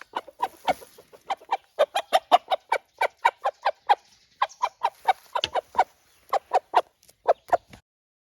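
Araucana chicken clucking in a fast, unbroken run of short calls, about four a second, which stops abruptly near the end.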